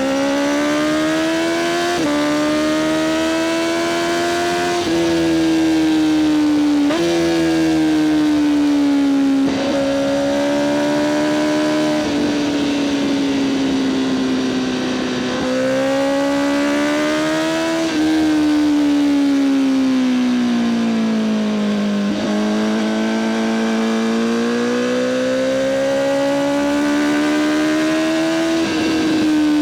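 Honda CBR1000RR-R SP Fireblade's inline-four engine through an Akrapovic exhaust, running steadily at speed. Its pitch rises and falls smoothly, broken by sudden steps every few seconds as gears are changed with the quickshifter.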